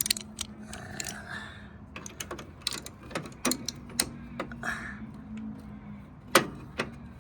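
Irregular metal clicks and knocks of a ride-on mower's idler pulley bolt and linkage being worked by hand, with one sharper knock about six seconds in. A faint low steady hum runs underneath.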